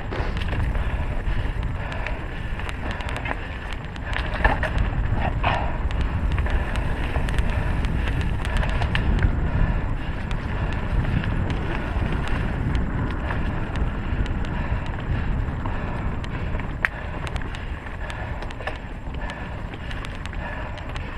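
Mountain bike (a 2016 Trek EX 9 29er) riding a dirt trail: wind rumbling steadily on the camera microphone over tyre noise, with frequent clicks and rattles from the bike jolting over the ground and a couple of short squeaks about four to five seconds in.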